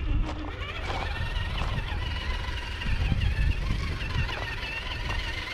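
Electric RC rock crawler's motor and gears whining, the pitch wavering up and down as it is throttled on a dirt hill, over a steady low wind rumble on the microphone.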